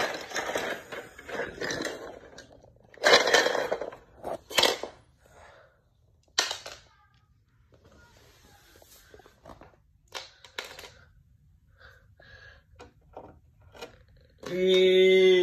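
Plastic toy train track pieces and cars being handled and set down on a wooden floor: scattered clatters, scrapes and clicks. A steady held tone lasts about a second near the end.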